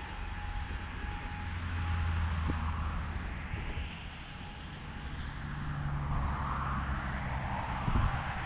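Distant rail and road traffic noise as an SBB Re460 electric locomotive with a double-deck train approaches from far off: a steady low hum with a hiss that swells twice as vehicles pass. A brief low thump comes near the end.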